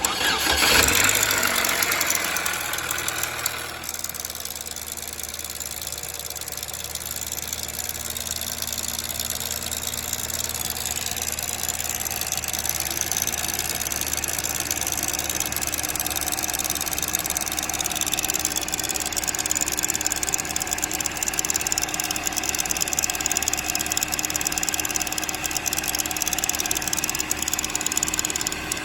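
A 2007 Chevy Cobalt's 2.2 Ecotec four-cylinder engine starts up and then idles steadily with a knocking rattle, which the owner takes for a broken timing chain guide and a bad tensioner or chain.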